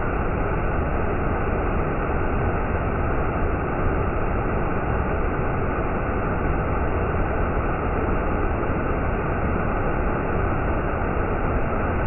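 Waterfall pouring over stepped rock ledges: a steady, unbroken rushing of falling water.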